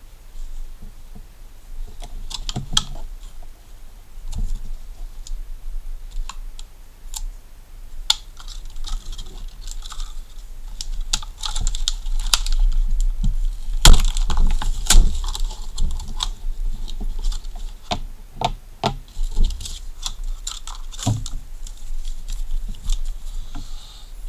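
Stiff clear-plastic blister packaging and its card crackling and clicking as they are handled and pulled apart, with one sharp crack about halfway through.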